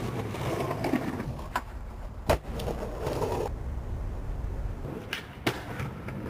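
Skateboard wheels rolling on a concrete sidewalk, with several sharp clacks of the board hitting the ground; the loudest comes a little over two seconds in.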